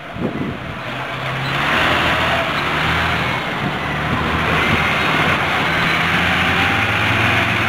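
Fire engine's diesel engine running as the truck drives past close by, growing louder about a second and a half in and staying loud.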